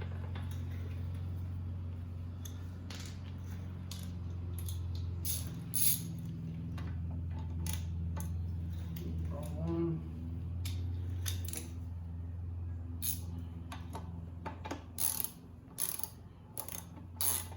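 Socket ratchet clicking in short runs while motorcycle axle and chain-adjuster bolts are tightened, over a steady low hum.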